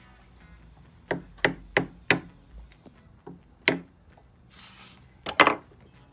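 Wooden mallet knocking on a wooden gunstock comb piece, driving it down onto cut-off nail points to mark it. Four quick sharp knocks, then one more a second or so later, then a quick double knock near the end.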